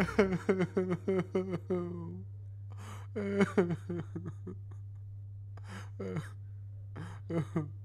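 A puppet character's voice making wordless sounds: a quick run of about nine short pitched notes in the first two seconds, then a few short gasps and sighs, over a faint steady hum.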